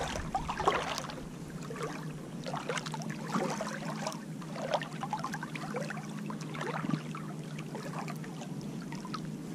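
Shallow bay water lapping and sloshing in small irregular splashes close to the water surface, with a faint steady low hum underneath.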